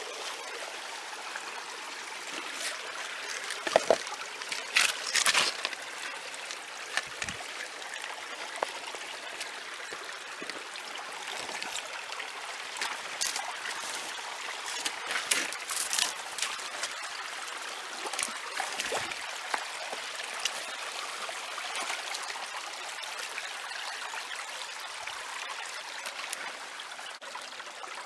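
Small shallow creek trickling over rocks, a steady watery rush. Brief crackles and knocks come through it, clustered about four to six seconds in and again around fifteen to sixteen seconds in.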